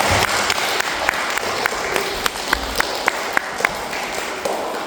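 Young children applauding: a dense patter of many hands clapping, with a few louder single claps standing out, thinning out near the end.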